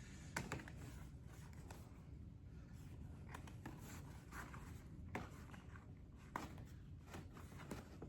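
Faint rustling with scattered light clicks as oil pan gaskets are peeled out of a gasket kit and handled.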